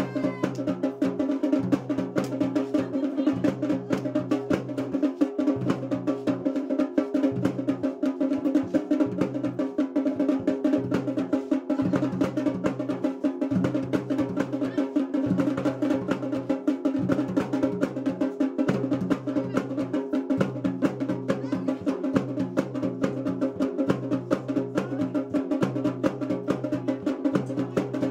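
Dhol and damau drums playing a fast, steady rhythm for the Pando dance, with a steady held tone beneath the strokes.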